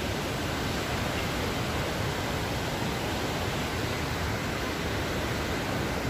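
The Rhine Falls, a large river waterfall, rushing steadily: an even, unbroken wash of falling-water noise.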